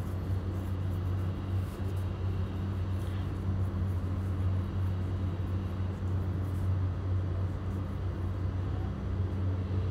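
Potato chips deep-frying in hot oil in a pot, a steady sizzle, over a constant low hum.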